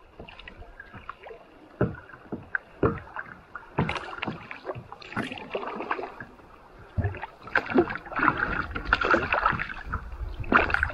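Kayak paddling: irregular splashing paddle strokes and water dripping, with sharp knocks and clicks scattered through, busier in the second half.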